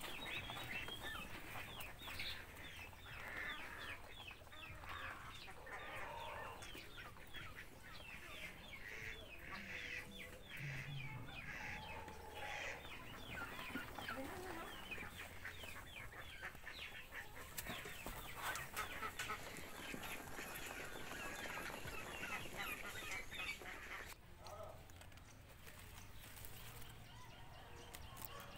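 A flock of domestic laying ducks quacking and chattering: many short calls overlapping. They die down a few seconds before the end.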